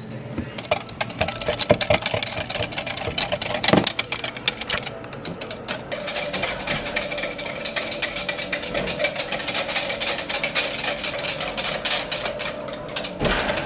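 Personal blender's motor running, blending milk and protein powder into a shake; the whir turns steadier about halfway through.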